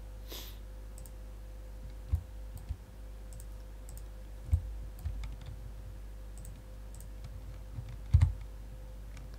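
Scattered computer mouse clicks and light knocks on the desk, a few seconds apart, the loudest a double knock near the end, over a steady low electrical hum.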